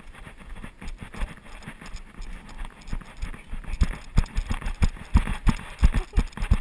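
Footsteps on a dirt path, heard through a body-worn GoPro as a run of thumps about three a second that grow louder about three seconds in.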